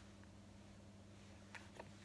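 Near silence: room tone with a faint steady low hum, and two soft clicks near the end.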